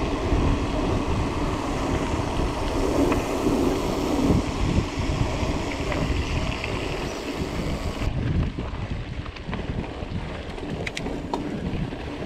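Wind buffeting the microphone of a GoPro action camera on a moving mountain bike, over the rolling noise of the tyres on a gravel lane. About eight seconds in the sound changes abruptly to quieter rolling on a dirt trail, with a few small clicks and rattles.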